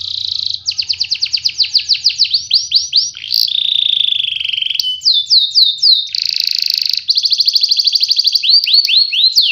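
Domestic canary singing a loud, continuous song of rolls and trills, switching every second or two between fast buzzy trills and slower runs of falling whistled notes.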